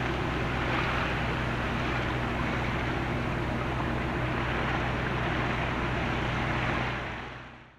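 Boat motor running steadily under wind and water noise, fading out near the end.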